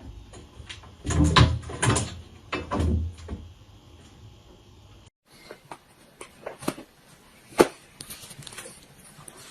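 A series of knocks and bumps: several heavy thumps in the first few seconds, then scattered light clicks and one sharp knock.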